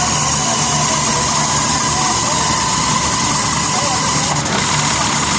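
Steady mechanical din of industrial sewing machines running on a garment factory floor, with background voices.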